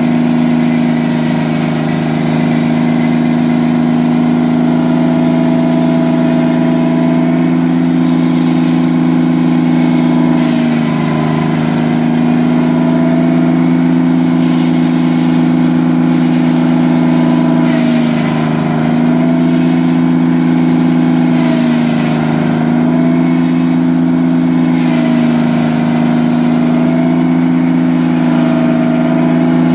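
Carriage sawmill running while sawing a red oak log: a steady, loud mechanical drone whose pitch sags briefly about four times and recovers, as the drive takes load in the cut.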